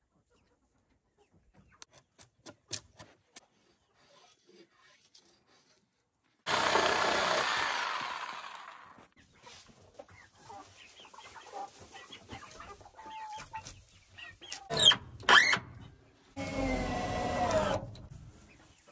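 Domestic chickens clucking and calling, loudest in two stretches of a second or two. Scattered sharp clicks and a few loud knocks are heard between them.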